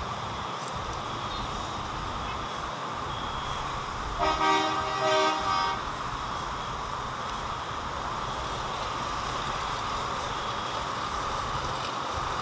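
Distant twin-engine jet airliner on its takeoff run and climb-out, a steady roar of jet noise. About four seconds in, a horn-like tone sounds twice in quick succession.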